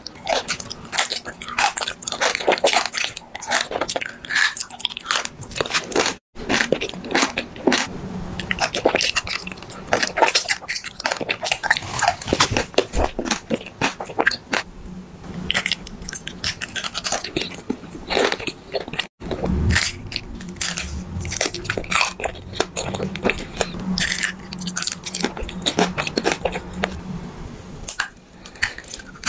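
Close-miked biting and chewing of candy: dense crunching and crackling bites, in three stretches split by two brief silent breaks about a third and two thirds of the way through.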